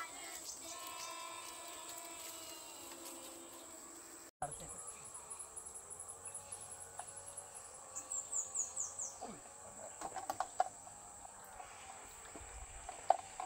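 Insects shrilling steadily in one high, unchanging tone, with a few short falling chirps about eight seconds in and some light knocks near the end.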